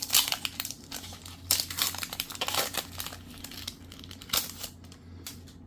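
Foil wrapper of a Pokémon trading card booster pack being torn open and crinkled by hand, a run of irregular sharp crackles.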